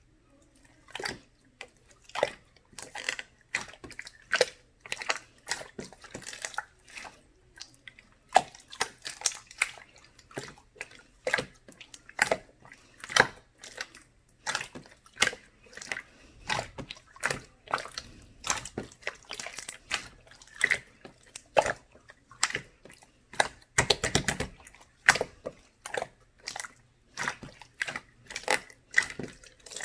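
Slime being played with by hand: irregular wet clicks and pops, a few each second, as it is pressed, folded and stretched, with a thicker run of crackling about three quarters of the way through.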